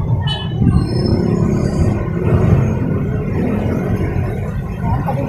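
Street noise: a steady low rumble of traffic, with a brief high squeal about a third of a second in and thin high tones around a second in.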